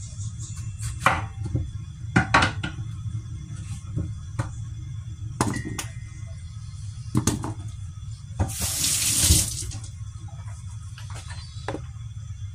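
Several sharp knocks of a kitchen knife on a wooden cutting board, then, about two-thirds of the way in, a kitchen tap running into the sink in one short burst of about a second, the loudest sound. A low steady hum runs underneath.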